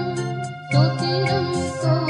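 Tamil Christian worship song: voices singing a melody over keyboard accompaniment and a steady beat. The music thins out briefly about half a second in, then comes back.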